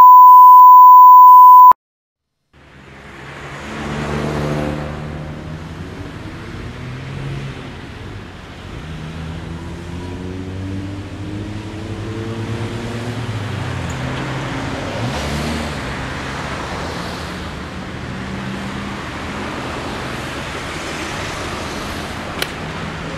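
A steady 1 kHz test tone under colour bars for the first couple of seconds, then after a short gap, street traffic: cars driving by, their engines rising in pitch as they pull away. Near the end, a single sharp click of a pedestrian crossing button being pressed.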